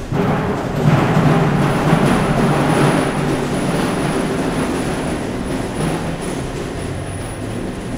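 Loud, steady mechanical rumble with a rushing noise over it, cutting in suddenly at the start and slowly easing off.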